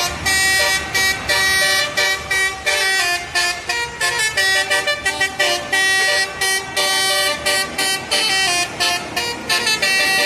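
Tour bus's telolet basuri horn playing a quick tune of many short notes, several horn tones sounding together and stepping up and down in pitch.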